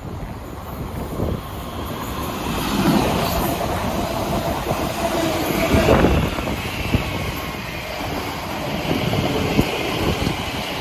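A South Western Railway train running along the tracks, growing louder from about two seconds in and loudest about six seconds in, with scattered knocks from the wheels on the rails.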